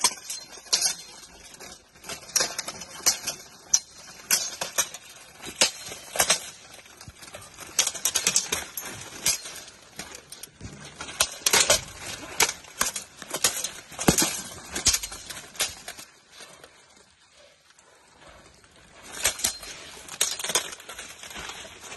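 Full-contact armoured sword fight: swords striking steel plate armour, with repeated sharp metallic clanks and clatter in quick clusters and a lull of a few seconds about three-quarters through.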